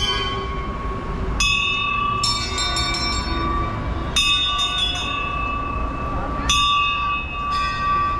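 Temple bells being rung, a series of clanging strikes that each ring on and fade, several in quick succession about two seconds in and single strikes later on, over a steady low background rumble.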